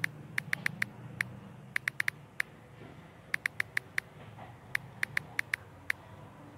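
Key-press clicks of a smartphone's on-screen keyboard as text is typed. The sharp, identical clicks come in four quick runs of four to six, about six a second, with short pauses between words.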